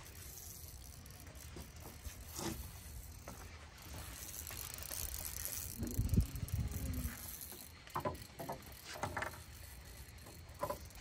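Spinning fishing reel being cranked to bring in a hooked fish, a rattly mechanical whirr. A few low thumps come about six seconds in.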